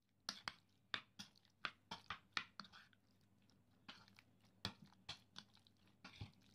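Faint wet squelches and light clicks of raw chicken pieces being stirred through a yogurt-and-spice marinade with a spoon in a bowl, in irregular short strokes with a brief pause midway.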